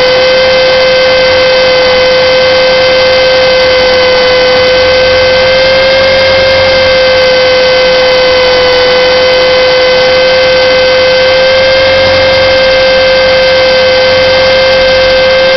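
Align T-rex 450 electric RC helicopter in flight, heard from a camera mounted on the helicopter itself: a loud, steady whine from the brushless motor, gears and spinning rotors. The pitch drifts only slightly up and down as the head speed changes.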